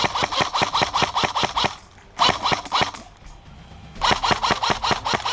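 Airsoft rifle firing full-auto bursts: a long burst, a shorter one about two seconds in, and another starting about four seconds in.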